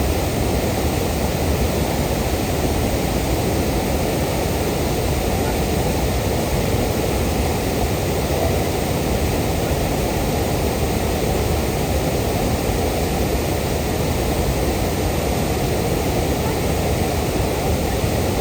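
Nyangombe Falls waterfall: a steady, loud rush of falling water.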